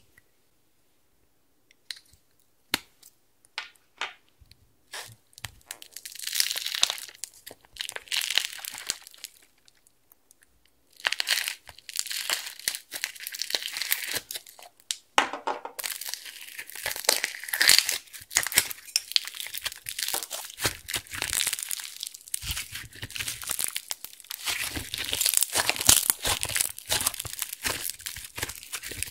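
Slime full of small foam beads squeezed and kneaded by hand, crackling and popping densely. In the first few seconds there are only a few separate clicks with pauses between them.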